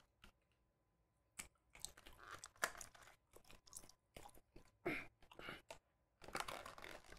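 Two people chewing a firm gummy bear: faint, scattered wet mouth clicks and smacks that start about a second and a half in.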